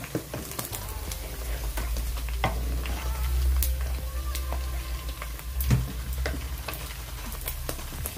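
Chunks of meat frying in hot oil in a metal pot, sizzling with scattered pops, while a wooden spoon stirs and scrapes them. One louder knock comes about two-thirds of the way through.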